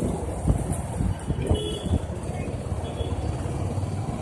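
Motorbike running at low speed through street traffic, a rough, uneven low rumble.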